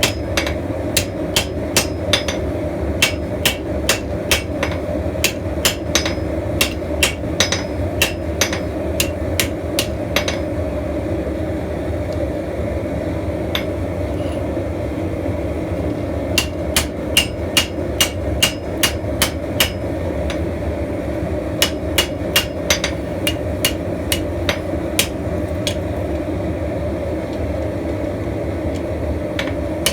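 Blacksmith's hammer striking steel on an anvil in runs of quick, ringing blows, about two to three a second, with a pause of several seconds in the middle. A steady low rushing noise runs underneath.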